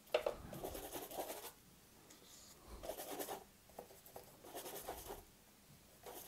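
Bristle paintbrush scrubbing through thick gouache, mixing paint on the palette and then brushing it onto the board, heard as soft scratchy strokes: one longer stretch at the start, then shorter strokes around the middle with quiet gaps between.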